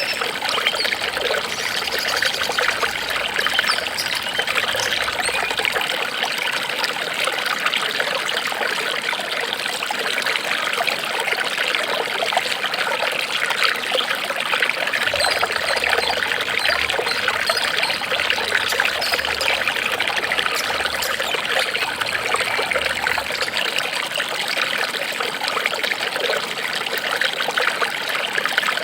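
Running water trickling and splashing steadily, like a small stream or fountain, with an even, unbroken bubbling.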